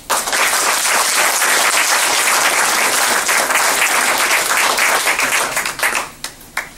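Audience applauding, a dense round of clapping that starts abruptly and thins out into a few scattered claps about six seconds in.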